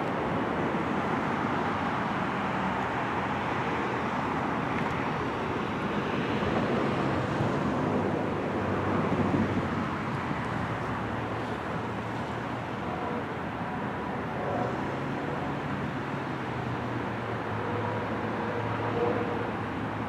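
Steady outdoor rumble of road traffic and a distant idling diesel freight locomotive, with no horn.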